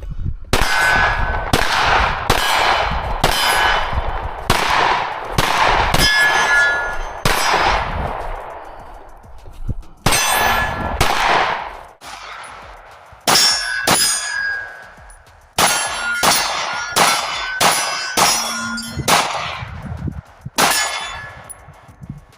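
Rapid strings of 9mm pistol shots from a Glock 45, each followed by the clang of a steel target ringing on after the hit. The shots come in quick runs about half a second apart, with a pause near the middle.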